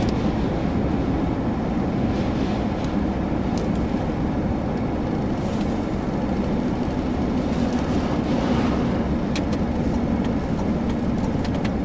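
Steady car noise heard from inside a moving car: engine hum and road rumble, with a couple of faint clicks.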